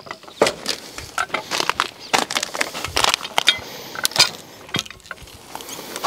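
Irregular sharp clicks, knocks and crackles as the steel hook of a LogOX cant hook bites into a log's bark and is levered against it, the log shifting on the sawmill's steel bed.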